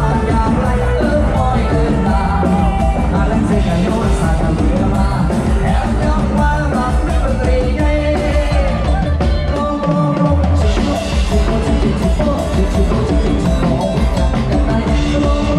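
Loud live lam sing music: a band with drum kit and a steady bass beat under a sung melody line. The bass drops out briefly about two-thirds of the way through, then comes back in.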